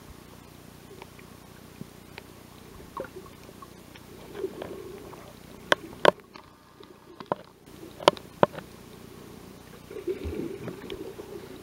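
Muffled underwater sound of choppy shallow water washing around the camera: a low steady rumble with scattered sharp clicks and knocks, the loudest few just past the middle.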